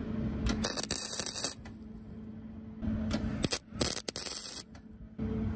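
Wire-feed welder arc crackling in several short bursts, each under a second, as holes in thin car-body sheet metal are filled with weld over a backing plate. A steady low hum runs underneath.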